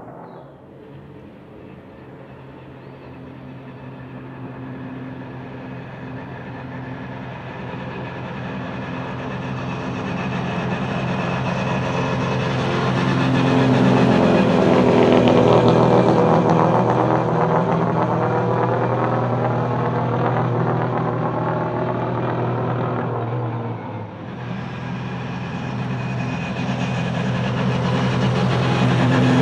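A Volvo S60 Polestar TC1 touring car's turbocharged 1.6-litre four-cylinder engine at high revs as the car approaches at speed. It gets louder and passes about halfway through with a drop in pitch, then fades. About 24 seconds in the sound breaks off and a second such car is heard approaching, growing louder toward the end.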